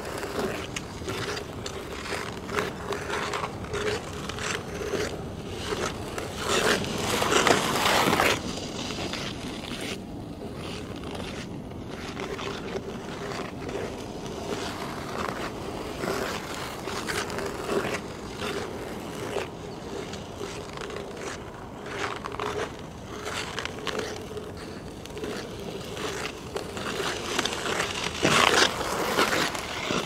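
Steel ice-skate blades scraping and carving across hard natural black ice, stroke after stroke, picked up close to the ice surface. Skaters pass closest and loudest about seven seconds in and again near the end.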